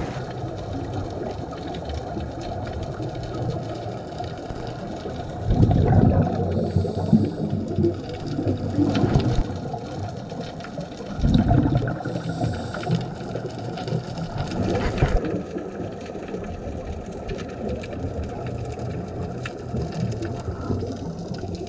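Muffled underwater sound picked up through a camera's waterproof housing: a steady low rumble, with louder bursts of scuba regulator exhaust bubbles every few seconds.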